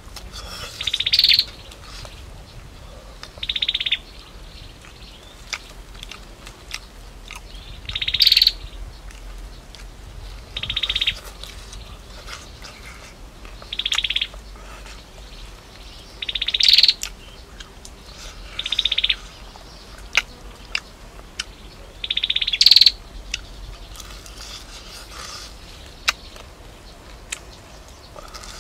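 A bird calling over and over, each call a short buzzy trill that rises at its end, repeated every two to three seconds. Soft clicks of chewing fall in between.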